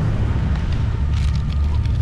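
Wind buffeting the microphone in a steady low rumble, with a short crinkling rustle of a foil seasoning packet being shaken out over a cup noodle about a second in.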